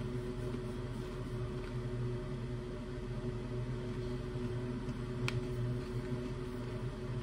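Steady low background hum of a small room, with one faint click about five seconds in.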